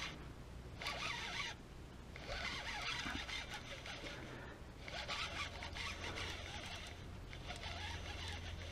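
Fishing reel being cranked in short spells, a zipper-like rasping whirr that starts and stops several times, while the angler retrieves a fish he fears has come off. A low steady hum joins about halfway through.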